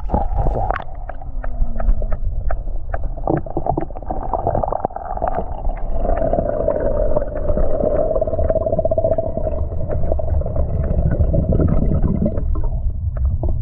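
Muffled underwater sound of swimming-pool water picked up by a submerged camera: a low rumble of moving water with many scattered clicks and bubbling as the toy battleship is handled under the surface.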